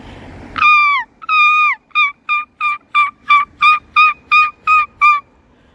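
A gull giving its long call: two drawn-out, slightly falling wails, then a run of about ten short yelping notes at roughly three a second that stops near the end.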